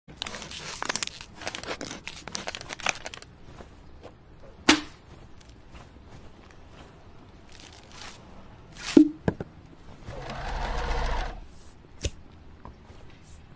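Thin plastic bottle crinkling and crackling in quick bursts for about three seconds, followed by two sharp knocks several seconds apart, a brief whirring rush about ten seconds in, and a single click near the end.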